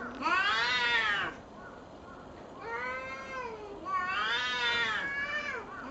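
Cats yowling at each other in a fight standoff: three long, drawn-out yowls that rise and fall in pitch, the first the loudest, then a shorter one near the end.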